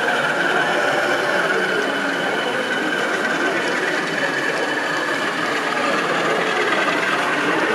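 Model British Rail Class 47 diesel locomotive running along the layout with its train of vans and wagons, a steady running noise from the model and its wheels on the track.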